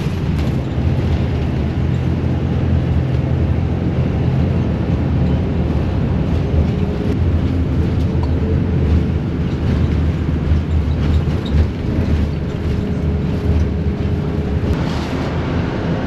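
Steady low rumble of a moving coach bus, its engine and road noise heard from inside the passenger cabin.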